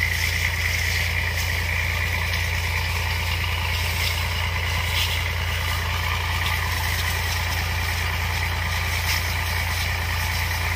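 Engine of an orchard power sprayer running steadily at a constant speed, driving the pump that feeds a spray hose, with an even hiss over a low hum.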